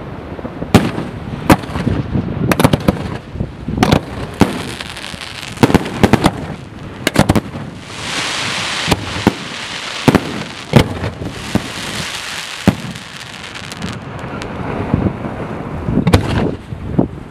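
Fireworks display: an irregular series of sharp bangs from bursting shells, with a stretch of dense crackling in the middle.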